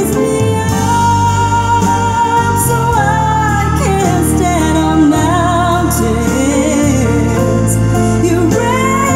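A song with a singing voice over a steady bass line, played back loud through Victor SX-3 Mark II hi-fi loudspeakers driven by a Magnet PR-8A class-A preamplifier and Magnet MA-5 power amplifier.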